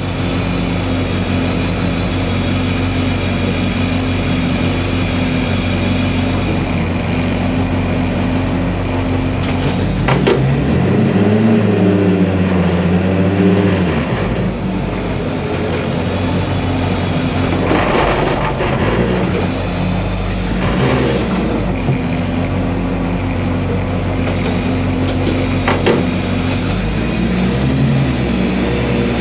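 Race-prepared VW Polo's engine idling in the roll-caged cabin, held on the start line of a hillclimb. Twice it is blipped, revving up and dropping back, and near the end the revs climb again as the car readies to launch.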